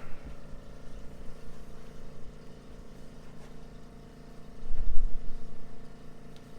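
Steady mechanical hum of room equipment, with a faint click and a low thud about five seconds in as the patient is moved through a chiropractic adjustment on the treatment table.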